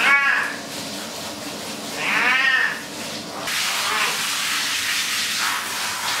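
Wet Persian cat meowing loudly in protest while being bathed, two long calls that rise and fall in pitch, at the start and about two seconds in, then a fainter one near four seconds. A handheld shower head sprays water over it throughout, the hiss of the spray getting louder after about three and a half seconds.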